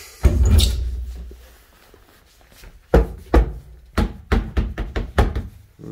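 A closet door thuds and rumbles open for about a second, then a hand raps on a wooden closet shelf, about ten quick knocks over two and a half seconds.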